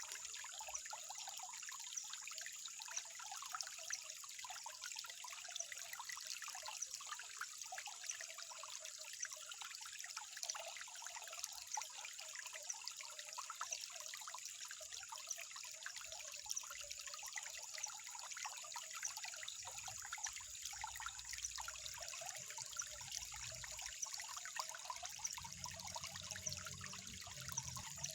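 Water trickling, a steady stream of small, irregular splashes and drips.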